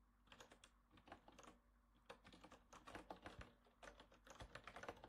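Faint, rapid typing on a computer keyboard: a quick run of key clicks with a short pause about two seconds in.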